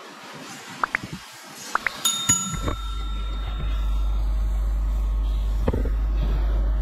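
Hand tools working on a Tata Nano engine's lower pulley and belt: a few sharp metal clicks, then about two seconds in a spanner strikes metal with a clink that rings on for over a second. A steady low rumble starts just after and keeps going.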